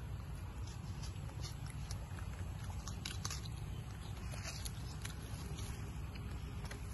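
Long-tailed macaque biting and chewing watermelon: scattered short clicks and crunches over a steady low rumble.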